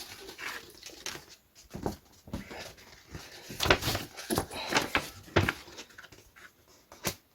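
A large folded paper poster being unfolded, with irregular paper rustles and crackles.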